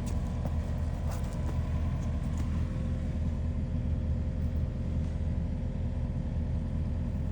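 Excavator's diesel engine idling, a steady low rumble.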